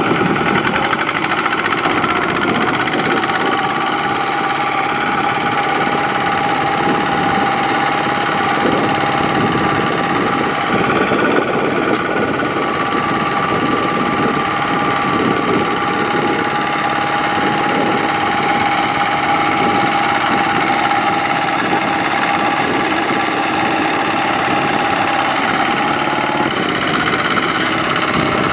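Tractor diesel engine running steadily, with a steady high whine over the engine note.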